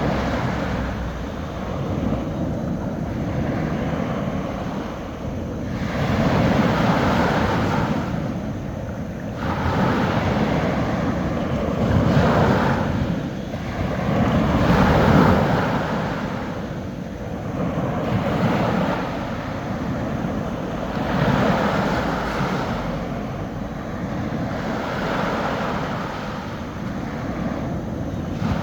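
Small sea waves breaking and washing up a beach, each wave swelling and easing in a steady rolling rhythm, a new wash every two to three seconds.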